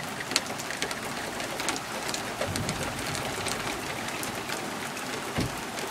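Steady rain falling, a hiss with many sharp drop taps close by.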